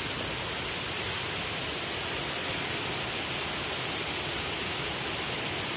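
Steady rushing of water pouring over a dam spillway into the pool below, an even hiss without breaks.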